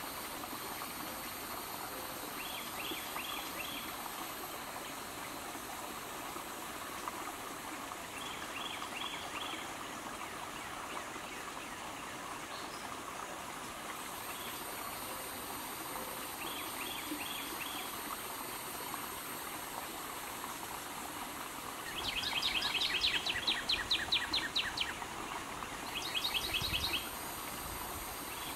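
Steady rush of flowing water with birds calling over it: short runs of four quick high notes a few times, then a louder rapid series of chirps a little over 20 seconds in and again near the end.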